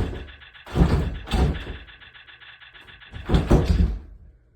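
A series of loud, heavy thuds, like pounding or banging on a door, over a buzzing tone that pulses about ten times a second and cuts off near the end.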